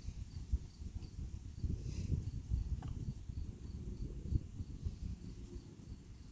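Low, uneven rumble of handling or wind noise on the microphone with a few light clicks, over a faint, high chirp repeating evenly, like a cricket.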